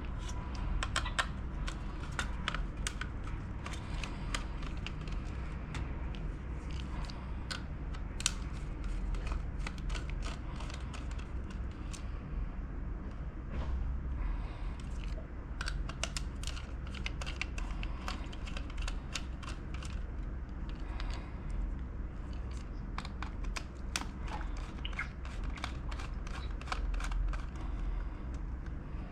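Irregular small clicks and taps of hard plastic and metal as a 120 GB SSD is worked loose and taken out of a laptop, over a steady low hum.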